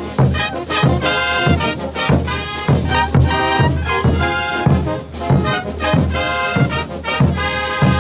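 Brass band playing a morenada: trumpets and trombones in held chords over a steady low beat about twice a second.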